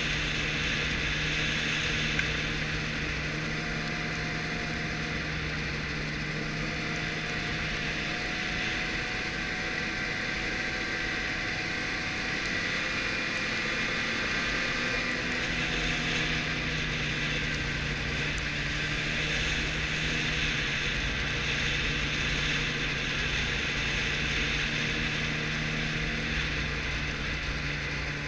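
Arctic Cat snowmobile running as it rides along, engine note steady, with a slight shift in pitch about halfway through as the speed changes.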